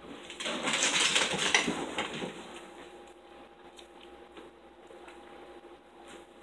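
Metal forks scraping and clicking on dinner plates, a busy clatter for about two seconds near the start, then only a few faint clicks.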